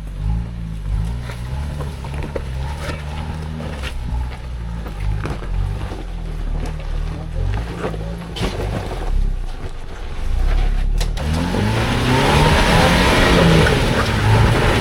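Ford Bronco's engine running low and steady as it crawls the trail, then revving harder from about eleven seconds in, its pitch rising under a loud rush of noise.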